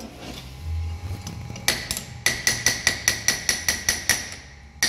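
Hammer blows on a two-jaw bearing puller clamped on a Nissan Patrol differential bearing, driving the bearing off the differential case: a fast run of sharp, ringing metal-on-metal strikes, about five a second. The strikes start about two seconds in and break off briefly near the end.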